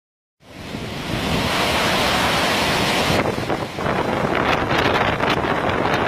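Cyclone-force wind buffeting the microphone over heavy surf, a loud, dense rushing noise. About three seconds in the high hiss drops away and the noise turns gusty and uneven.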